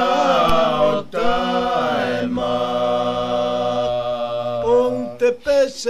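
Four men singing a Samoan song unaccompanied in a chant-like style. Their voices together hold one long note through the middle, with short breaks for breath.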